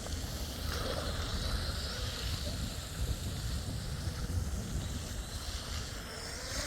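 Wind rumbling on the microphone, over the faint high whine of a small RC tunnel boat's electric brushless outboard motor running out on the water. The whine comes in under a second in.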